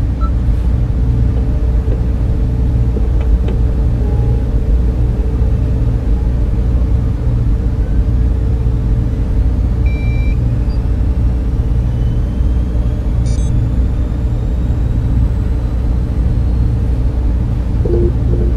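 Sci-fi spaceship-interior ambience: a steady low machinery and fan drone with a constant hum. A few short, faint electronic beeps sound over it.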